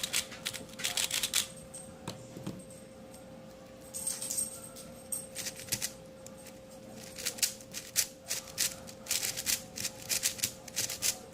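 Magnetized Yuxin Blue 4x4 speedcube being turned by hand: bursts of quick plastic clicks and clacks as the layers snap into place, with short pauses between bursts. A faint steady hum runs underneath.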